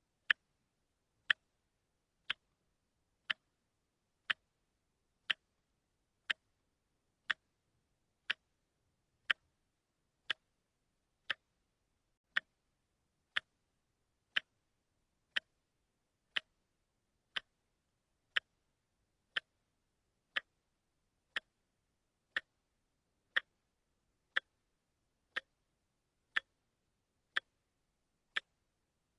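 A watch ticking steadily, one short sharp tick about every second, with silence between the ticks.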